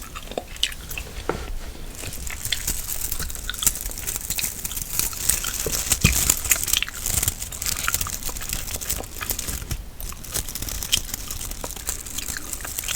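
Close-miked gum chewing: an irregular run of small mouth clicks and smacks.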